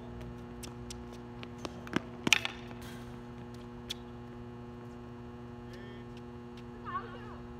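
Sharp pops of a tennis ball off a racket and the hard court, the loudest pair about two seconds in with a few fainter ones after, over a steady mains hum. A short squeak near the end.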